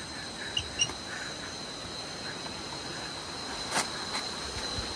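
A few light clicks from the pins of a giant pin-art wall as a person presses into it, over a steady high-pitched drone in the background.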